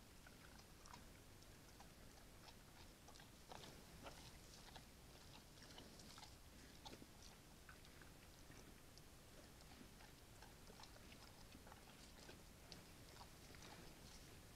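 Faint chewing and crunching of a bear feeding: soft, irregular crunches scattered over a steady hiss.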